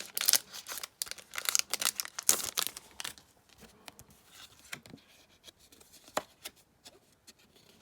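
A Pokémon trading-card booster pack's wrapper being torn open and crinkled for about three seconds, followed by fainter, scattered crinkles and clicks.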